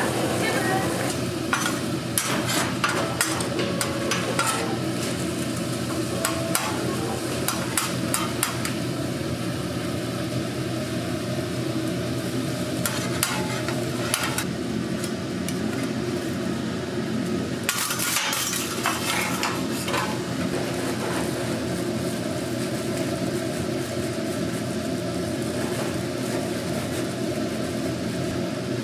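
Bulgogi frying on a flat-top griddle, with steel tongs clicking and scraping against the metal in several bouts and the last near two-thirds through, over a constant steady hum.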